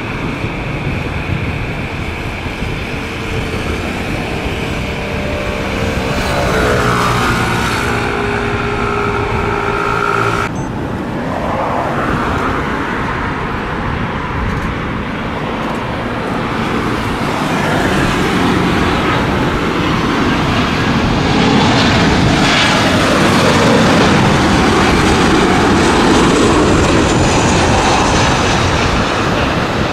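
Boeing 737-500's CFM56-3 jet engines spooling up on the takeoff roll, with whining tones that glide upward about six to eight seconds in. About ten seconds in the sound cuts abruptly to a Boeing 737-800's CFM56-7B jet engines on final approach: a broad rushing noise that grows louder as the jet comes in over the runway, with a faint falling whine near the end.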